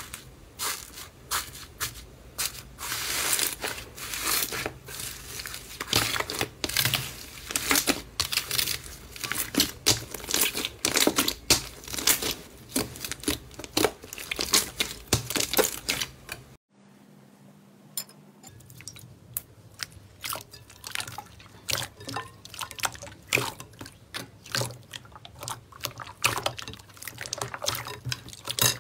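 Hands pressing and kneading slime: a dense run of small wet pops, squelches and crackles, which stops briefly a little over halfway through and then starts again.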